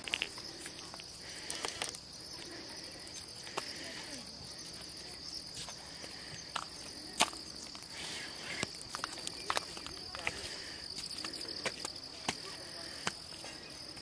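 Insects chirring in a continuous, steady high-pitched drone, with scattered short clicks from steps on the gravel path.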